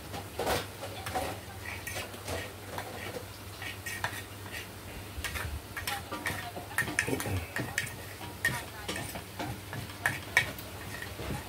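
Cutlery clinking and scraping against a dish during a meal, as irregular small taps and clicks spread through the whole stretch.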